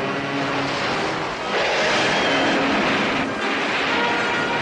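Tokusatsu sound effects of a patrol boat being crushed by a sea monster: a dense rushing crash of splashing water and wreckage over a low rumble, swelling louder from about one and a half seconds in and easing a little after three seconds.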